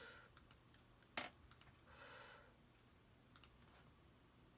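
Faint, scattered clicks of a computer mouse: several light clicks in the first second and a half, one of them louder, then a quick cluster of two or three about three and a half seconds in.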